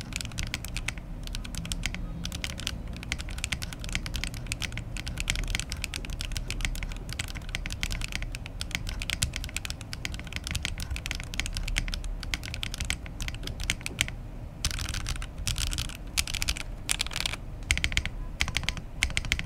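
Typing on an Oasis 65 mechanical keyboard built without foam: rapid, continuous keystroke clacks with a brief pause about three quarters of the way through. The reviewer hears some ring and hollowness in this no-foam build.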